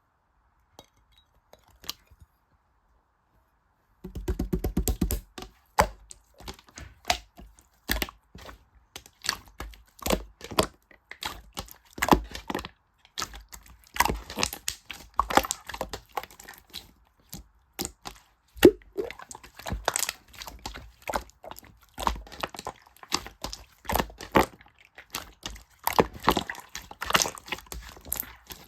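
Near silence, then from about four seconds in a dense, fast run of sharp clicks and taps, followed by irregular clicks, taps and knocks of hard objects being handled.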